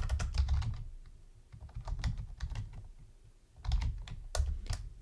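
Typing on a computer keyboard: quick runs of keystrokes at the start and again near the end, with a sparser, quieter lull in the middle.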